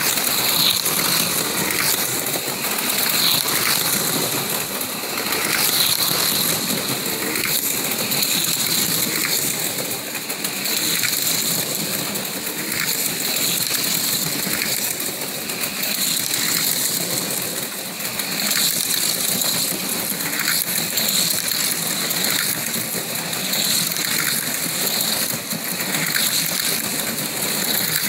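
Four HO slot cars lapping an oval track at about half throttle: the buzz of their small electric motors and the rattle of the cars in the plastic track slots, swelling and fading as cars pass close by.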